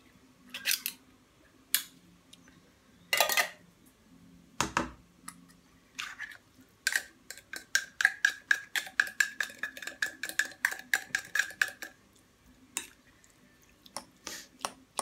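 A metal fork clinking and scraping against a glass bowl as tuna is broken up and mixed into chopped tomato. At first the knocks are scattered. From about seven to twelve seconds in comes a quick run of about six taps a second, with a ringing note.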